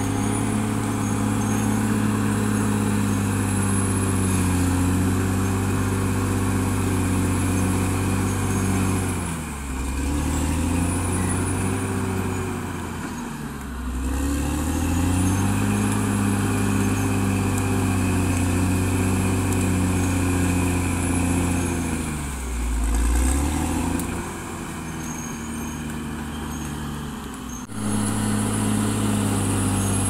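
Caterpillar D6R XL bulldozer's diesel engine running hard. Its pitch sags and picks back up three times, and it runs quieter for a few seconds near the end before coming back up. A faint high whistle rises and falls along with the engine.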